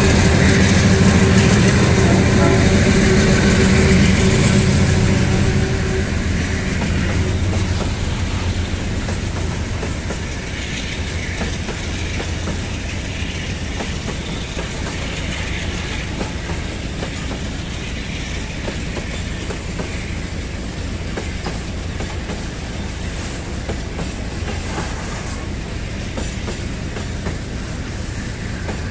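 Diesel locomotive passing close, its engine note strong for the first few seconds and then fading, followed by a long freight train of wagons rolling by with a steady clatter of wheels over the rails.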